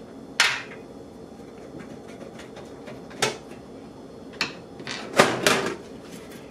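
Panel of a Thermaltake Versa H15 computer case being taken off: about six sharp clicks and knocks at uneven intervals, the loudest a close pair about five seconds in.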